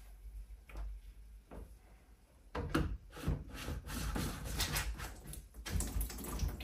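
Light knocks, clicks and rubbing of hands working the black plastic top and bleed of a magnetic central-heating system filter. It is quiet at first, and the handling noises start about two and a half seconds in.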